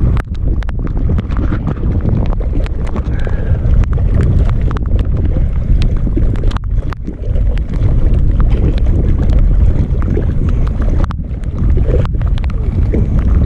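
Wind buffeting an action camera's microphone in a rainstorm: a loud, continuous low rumble, with scattered sharp ticks through it.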